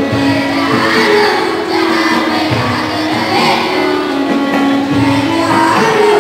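A group of boys singing a song together into microphones.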